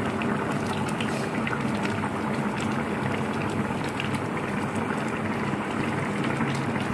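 Tengra fish and potato curry boiling hard in a pan: steady bubbling with scattered small pops over a low steady hum.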